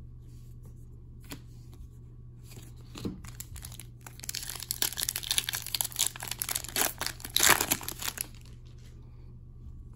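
Foil wrapper of a hockey card pack crinkling and tearing as it is opened, a dense run of crackles from about four seconds in until about eight seconds, after a couple of faint taps.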